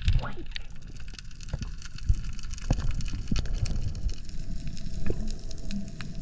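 Underwater sound on a diver's camera swimming against surge: a steady crackle of many sharp clicks over low rumbling thumps of moving water.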